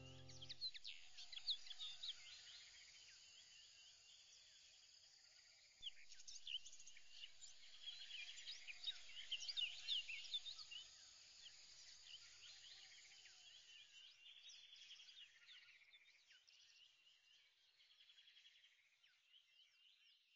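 Faint birdsong: many short, high chirps over a low hiss, busiest in the middle and thinning out near the end.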